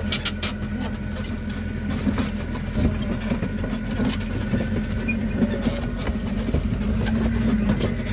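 The plantation tourist train's engine running steadily as it travels, with frequent short clicks and rattles.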